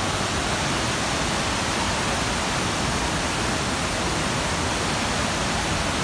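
Fast-flowing river water rushing toward a waterfall: a steady, even rush of water.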